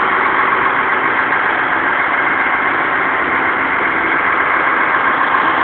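Construction machinery's diesel engine running steadily at an even idle-like pace, a constant hum with no change.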